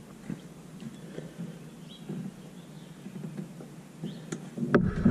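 Quiet outdoor background with a few light clicks and taps of hands working a valve core removal tool and gauge on an air conditioner's service port, and a louder knock near the end.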